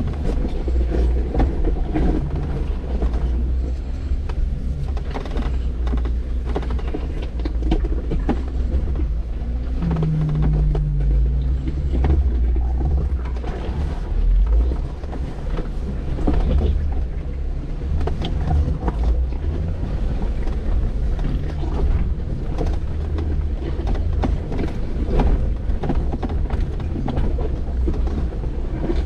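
Off-road vehicle's engine running under a heavy low rumble, with frequent short knocks as it works over rough ground.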